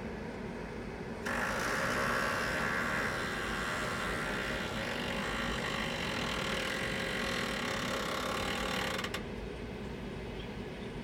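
Green Mountain Grills pellet grill making a loud mechanical noise over a steady hum. The noise starts suddenly about a second in and cuts off about nine seconds in.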